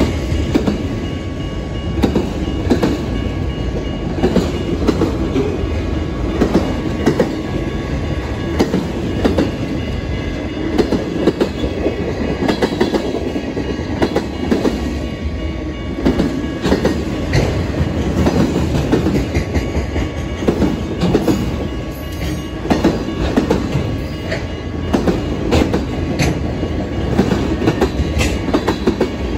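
Freight train cars rolling past, a steady rumble with wheels clicking repeatedly over rail joints.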